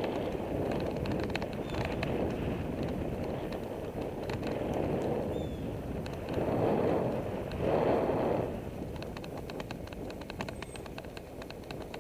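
Wind rushing over the microphone of a bicycle-mounted camera, with tyre noise on the pavement, as the bike rides along. The rush swells louder for about two seconds past the middle as an oncoming car goes by, then settles back.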